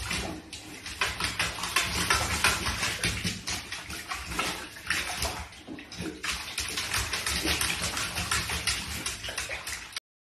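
A dachshund splashing and sloshing as it wades and paws through shallow bathwater in a tub, an irregular run of splashes that cuts off abruptly near the end.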